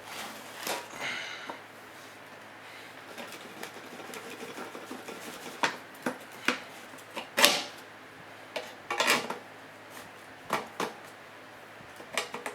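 Irregular metallic clinks and clanks of hand tools working at a sealed sheet-metal surplus ammunition can (spam can). The loudest clank comes about seven and a half seconds in, with a quick run of knocks around nine seconds.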